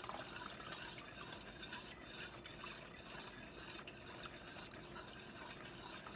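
A utensil stirring gravy in a pot, a steady quick scraping against the pan with small ticks, as a flour-thickened gravy is worked into chicken broth.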